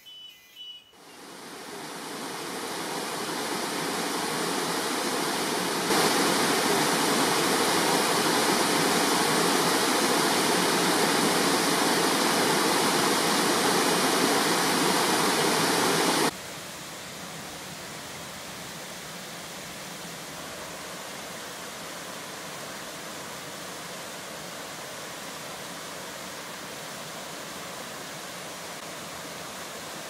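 Waterfall rushing into a pool: a steady, even wash of falling water. It fades in over the first few seconds, steps up louder, then drops suddenly to a quieter steady level about halfway through.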